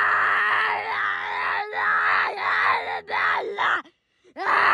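A single high voice holding a long yelled 'aaah' on one pitch, breaking off with small swoops in pitch and starting again several times. It cuts out briefly near the end, then resumes.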